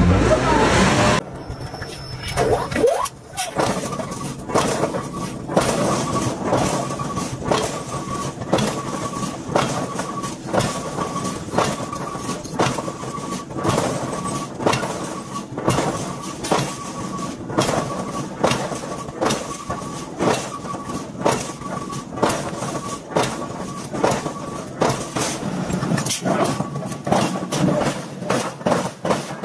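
A BMW sedan's engine revving, cut off about a second in. Then a long run of uneven metallic knocks, a few a second, from forging red-hot steel, with a steady high tone under most of it.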